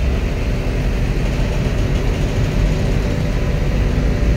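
A heavy vehicle engine running steadily, its sound mostly low-pitched, with no revving or separate knocks.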